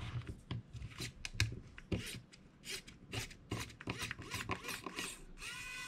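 Screwdriver backing screws out of a plastic hot glue gun housing: a run of small irregular clicks and scrapes, then a steady high squeak starting near the end.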